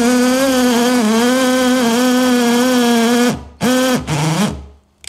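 KIMO 20V cordless drill driver running in hammer mode, boring a 40 mm hole into wood with a Forstner bit: the motor runs steadily under load for about three seconds, then stops, followed by two short bursts, the second lower in pitch.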